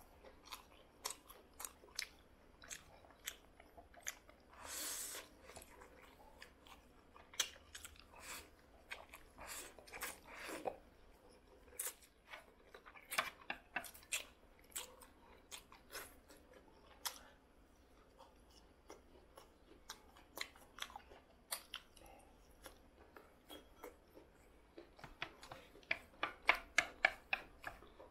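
Close-miked wet chewing, lip-smacking and slurping of black bean noodles: a steady scatter of short smacks and clicks, a longer slurp about five seconds in and another around ten seconds, and a quick run of smacks near the end.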